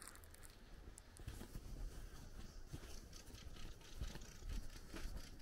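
Quiet footsteps of a person walking on a dirt path, a soft step roughly every second, over a faint low rumble.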